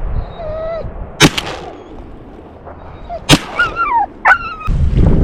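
Two shotgun shots about two seconds apart, with a dog whining and yelping around them. Near the end, loud wind noise on the microphone cuts in.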